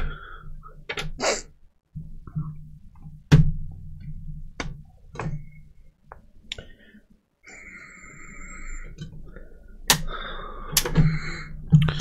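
Scattered clicks and knocks of a Dell D620 laptop's plastic casing and a screwdriver being handled during disassembly. A scraping sound runs for about a second and a half past the middle, and two louder knocks come near the end.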